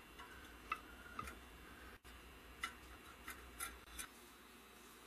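Light, scattered clicks and taps from handling homemade woodturning tools: wooden handles with metal ferrules and steel shanks knocking together. About six short clicks, spaced irregularly.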